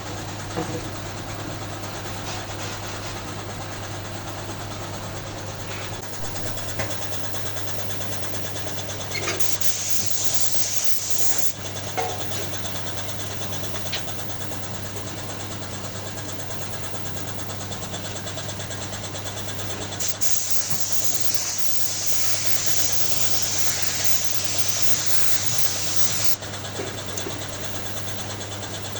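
Workshop machinery running with a steady motor hum, broken by stretches of loud hissing: a couple of seconds about a third of the way in, and a longer spell of several seconds later on, with a few light clicks.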